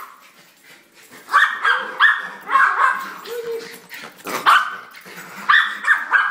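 Schnauzers barking in a string of short, sharp barks, starting about a second in: excited barking as they greet their owner coming home.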